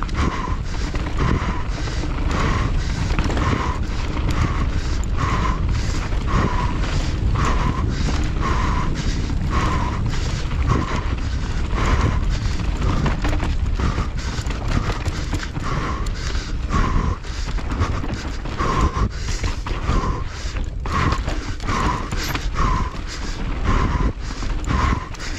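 A mountain bike is ridden hard down a rough, loose trail: continuous rattling, knocking and tyre and wind noise. A short sound repeats a little more than once a second throughout.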